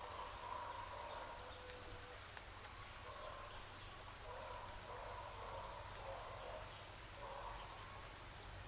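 Animal calls, most likely birds, repeating every second or so in drawn-out phrases over a steady low rumble of outdoor ambience.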